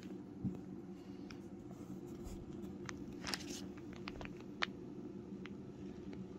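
Steady low hum in a small room, with a scattering of soft clicks and rustles.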